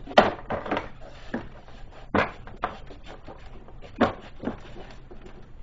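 Clacks and knocks of a cover being fitted back on in the engine bay: sharp knocks near the start, about two seconds in and about four seconds in, with lighter taps and rubbing between.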